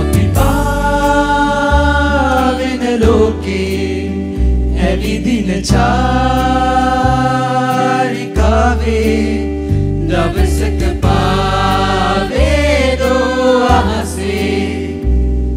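A mixed group of male and female voices singing a song together in long held, wavering notes, backed by acoustic guitar and keyboard.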